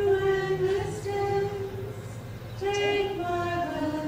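A woman singing slowly into a microphone, holding long notes of about a second each with short slides in pitch between them.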